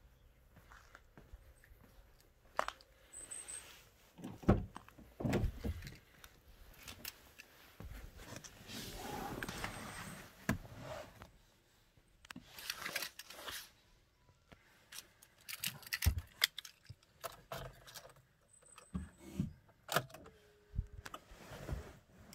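Handling noises in a car with its engine off: scattered clicks and knocks, with keys jangling and stretches of rustling. A short beep comes near the end as the ignition is switched on.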